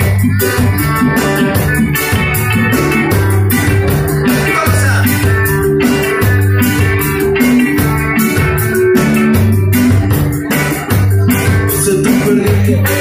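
Live band playing a song on electric guitars, keyboard and drums, with a steady beat and a moving low line underneath.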